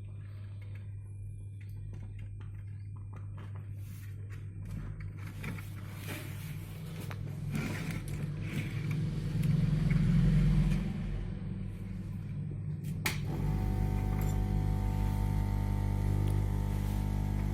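Steady electrical hum, with scraping and handling noises in the middle. A click comes about 13 seconds in, and then the hum turns louder and buzzier.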